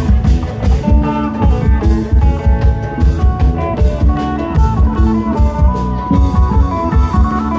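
Amplified Isan klong yao band music: long drums beating a steady, driving rhythm under a plucked string melody.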